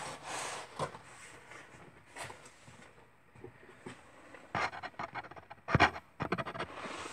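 Handling noise as a person moves about close to the camera: soft rustling at first, then a cluster of clicks and knocks about four and a half to six seconds in, the loudest a sharp knock near six seconds.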